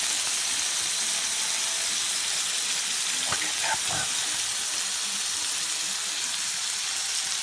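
A beef burger patty and potato rounds sizzling steadily on a hot flat-top griddle, an even hiss of fat and juices frying.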